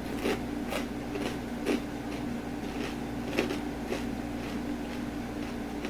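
Chewing crispy fried kangkong (water spinach) chips: irregular short crunches, a few in the first two seconds and a couple more later, over a steady low hum.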